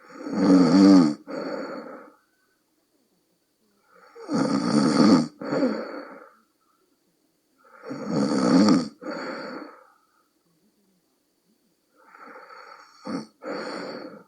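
A sleeping woman snoring, the croaking 'bullfrog' snore of deep sleep. There are four snores about four seconds apart, each a long, loud, rattling snore followed by a shorter, quieter one. The last is weaker, with a brief sharp catch in the middle.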